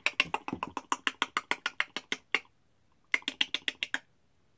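A fast, even run of sharp clicks, about ten a second, stops after a couple of seconds and then comes back for a shorter run of about a second.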